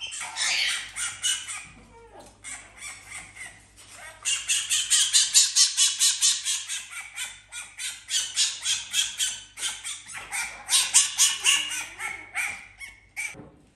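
Fennec fox chattering: a fast series of high-pitched yips, about five or six a second, in two long runs with a short break in the middle.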